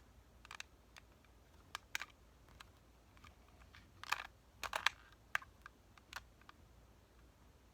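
Plastic Rubik's Cube being twisted by hand: scattered, irregular clicks and clacks of the layers turning, with a quick flurry about halfway through.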